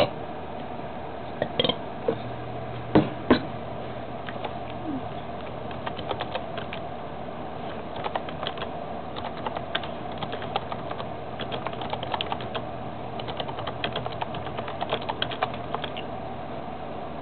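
Eating sounds close to the microphone: a few sharp knocks, then a dense run of small irregular clicks from about six seconds in that stops shortly before the end, over a faint steady low hum.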